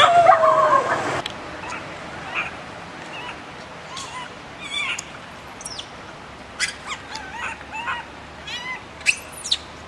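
Baby long-tailed macaque crying: a loud, gliding cry in the first second that breaks off, then short, fainter high squeals and calls scattered through, with a few sharper squeals near the end. The baby is calling for its mother.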